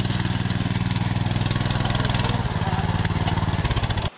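Pit bike engine running at low revs as the bike climbs a steep trail, its pitch dropping a little past halfway; the sound cuts off abruptly near the end.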